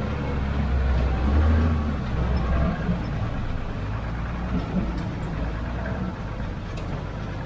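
Diesel engine of an old Tata 4x4 truck running steadily at low revs, heard from inside the cab while the truck is driven slowly along a rough track.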